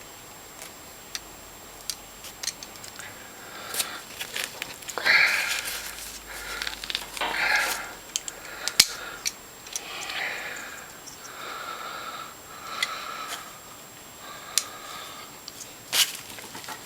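Channel-lock pliers and cord wires being handled while female crimp connectors are crimped on: scattered sharp clicks and short bursts of rustling.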